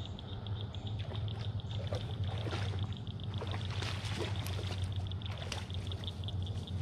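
Wood fire crackling in a metal fire pit, with scattered small pops, over a steady high trill that pulses several times a second and a low steady hum.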